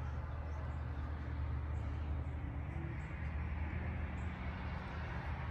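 Outdoor ambience: a steady low rumble with faint, scattered high bird chirps.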